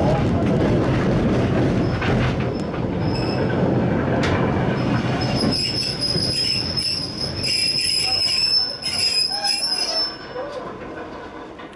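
Hakodate City Tram car 39, an antique 30-class streetcar, running on street rails with a steady rumble of steel wheels. About halfway in, a high steady squeal sets in and holds, and the sound grows quieter near the end.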